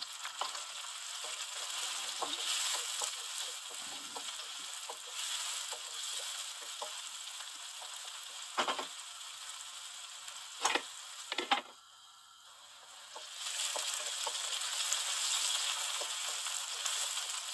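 Diced onions sizzling in hot oil in a non-stick wok, stirred with a wooden spatula that knocks against the pan three times around the middle. The sizzle drops away briefly about two-thirds in, then comes back.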